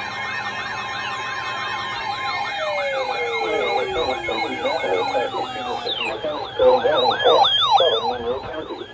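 Several electronic sirens sounding at once. A fast yelp warbles about four times a second over slower rising-and-falling wails and long falling glides, and the wails grow louder over the last few seconds.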